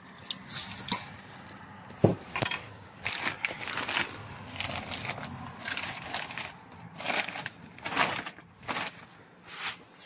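Plastic bags and paper food wrapping crinkling and rustling in irregular bursts as food is unwrapped, with one sharp click about two seconds in.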